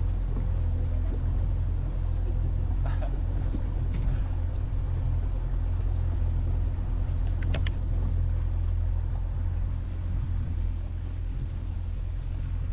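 A small center-console fishing boat's motor runs steadily under way: a deep, even rumble with a steady hum over it.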